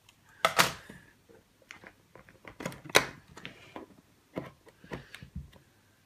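Irregular clicks and knocks of a wall dimmer switch plate and its small parts being handled and set down on a wooden tabletop, with the sharpest knock about three seconds in.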